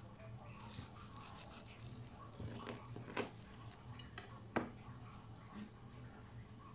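A knife cutting through a fried, batter-coated rambutan fritter, with faint crackling from the crust and two sharp clicks, about three and four and a half seconds in, the second the louder.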